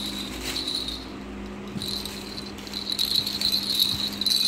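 Plastic baby rattle being shaken, the small plastic beads inside its caged balls clattering in a fast, high jingle that stops briefly twice in the middle.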